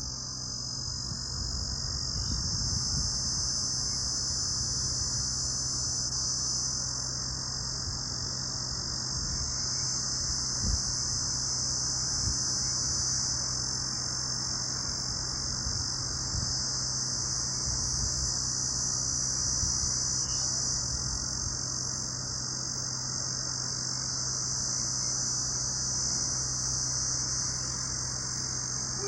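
Steady chorus of night insects: many overlapping high-pitched trills merging into one unbroken shrill drone, with a faint low hum beneath.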